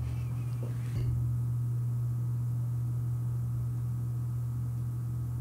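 A steady low hum with no other clear sound.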